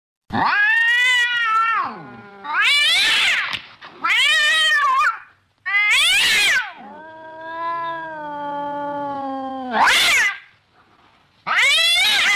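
Domestic cat meowing and yowling in a series of about six loud calls, with one long drawn-out yowl in the middle that slowly falls in pitch.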